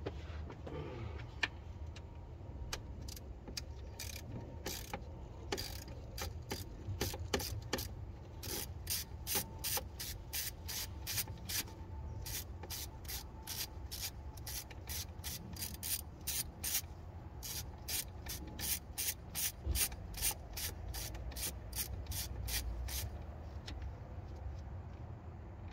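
Ratchet wrench clicking in long runs of quick, even clicks as a T30 Torx bolt is unscrewed by hand.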